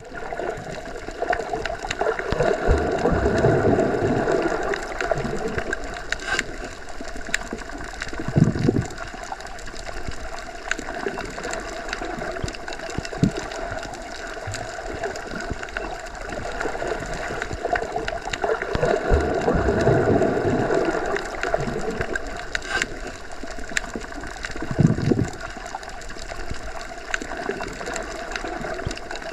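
Underwater ambience as heard when submerged: a continuous muffled gurgling rush that swells slowly and fades twice, with brief low surges and scattered faint clicks.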